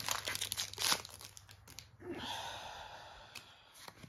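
Foil wrapper of a Pokémon booster pack crinkling and tearing as it is ripped open by hand, the crackling densest in the first second. This is followed by a softer rustle and a couple of small clicks near the end.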